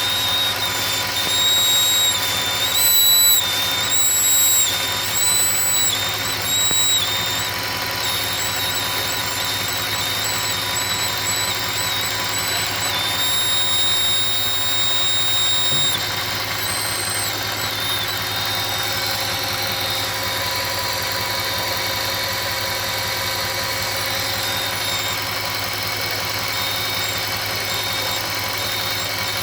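2008 Audi S8's 5.2-litre FSI V10 engine running with a high-pitched whistle, an air leak past a faulty throttle body gasket. The whistle steps up and down in pitch over the first several seconds, holds one steady note for a few seconds, then fades to faint over the steady engine sound.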